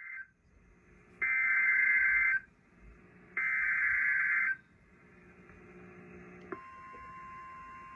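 Emergency Alert System SAME data bursts: a short screech of warbling digital tones at the very start, then two loud screeching bursts about a second long each, a second apart. About 6.5 s in, the steady 1050 Hz NOAA Weather Radio alert tone begins and holds.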